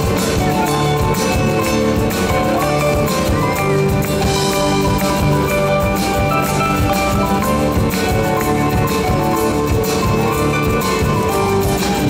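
A live band playing an instrumental passage of Argentine folk music on acoustic guitar, electric bass, keyboard and drum kit with a harmonica, over a steady beat.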